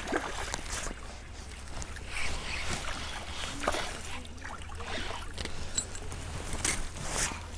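Spinning reel being cranked as a hooked pike is played to the bank, the fish thrashing and splashing at the surface, loudest near the end. Low wind rumble on the microphone underneath.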